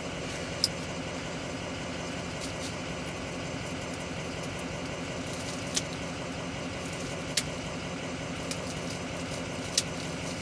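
Steady hum of a truck idling, heard from inside the cab, with a few light clicks from a pocketknife cutting open a small plastic package.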